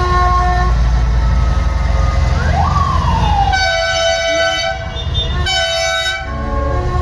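Parade vehicles' engines rumbling low and steady, with a siren-like whoop that rises and then falls about two and a half seconds in, followed by two long vehicle horn blasts, the second shorter.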